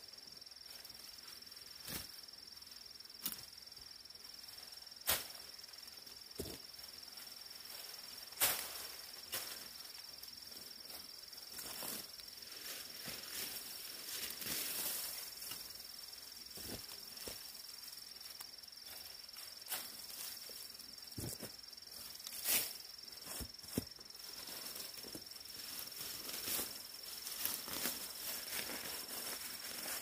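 Insects chirring in one steady high note, over scattered sharp snaps and rustles of twigs, vines and brush being cut and pulled away by hand; the loudest snaps come about a third of the way in and again about three quarters in.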